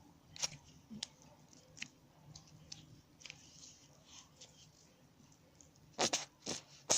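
Scattered small clicks and crackles of hands handling a plastic lotion bottle and the wet toilet-paper slime. A louder run of sharp clicks and squelches comes near the end as the nearly empty lotion bottle is worked.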